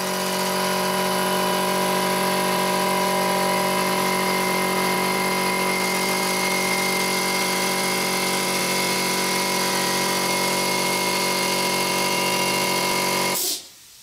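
Electric air compressor's motor and pump running steadily as it refills the tank, then cutting off suddenly near the end: the pressure switch, just turned down to a lower setting, reaching its cut-out pressure.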